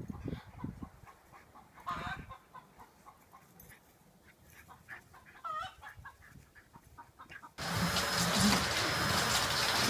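A rooster gives a few short calls that dip and rise in pitch, about two and five and a half seconds in. Near the end a canister vacuum cleaner comes in suddenly, running loudly with a steady high whine.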